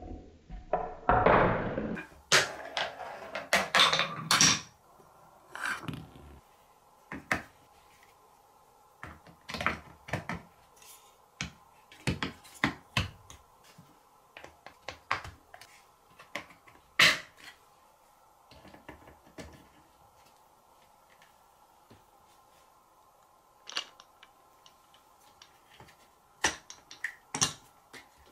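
A ball rolling and knocking down a marble run of wooden track pieces on plastic blocks for the first few seconds. After that, wooden track pieces and plastic blocks clicking and knocking now and then as they are fitted together by hand.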